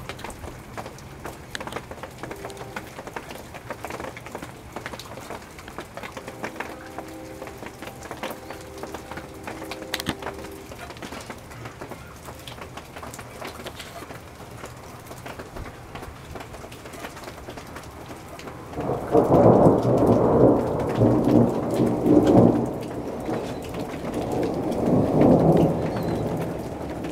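Steady rain falling with scattered drips. About two-thirds of the way in, thunder rumbles loudly and rolls on in several swells for about seven seconds before fading back under the rain.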